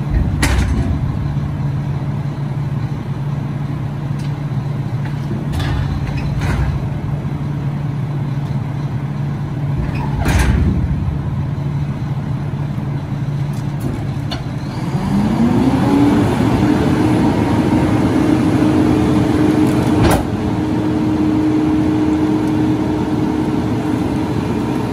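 Mack LR garbage truck's diesel engine idling steadily, then about fifteen seconds in speeding up and holding at a higher steady speed until near the end. A few short knocks and clanks sound over it.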